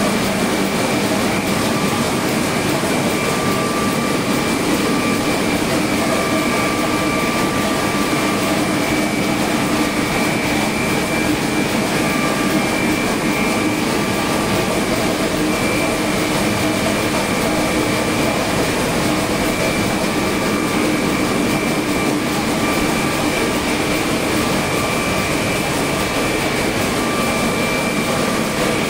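KBA offset printing press running: a steady, loud mechanical noise with a constant high whine over it and a fainter tone that drops in and out.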